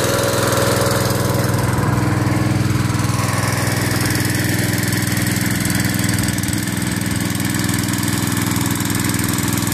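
Small gasoline engine of a 3-inch portable water pump running steadily just above idle while it pumps water.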